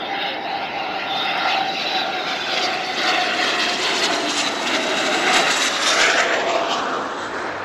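Jet aircraft making a low pass, its engine noise swelling with a whine that drops in pitch as it goes by, loudest about five to six seconds in, then easing off.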